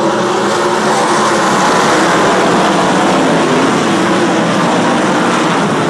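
Race car engines running on a track, a steady, loud engine noise without a break.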